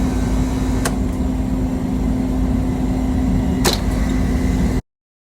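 Air conditioner running with a steady low hum and a constant drone, broken by two sharp knocks about three seconds apart; the sound cuts off suddenly near the end.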